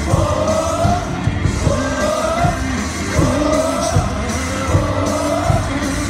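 Baseball stadium crowd singing a cheer song along with amplified music, a short rising phrase repeated over and over above a steady drum beat.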